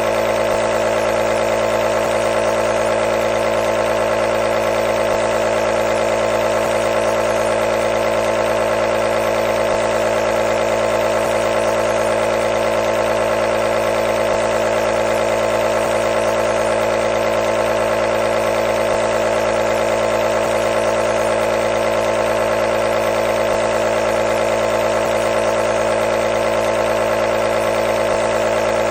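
Nebulizer running continuously with a steady, even buzzing hum.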